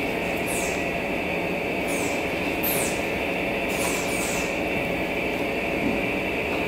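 Steady mechanical whirring noise with a constant high whine. About half a dozen short, high, falling squeaks cut in over it, around a second in, between two and four seconds, and near the end.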